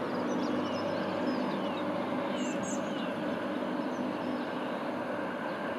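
A Class 185 diesel multiple unit's engines run in a steady low drone as the train approaches. Small birds chirp a few times about two seconds in.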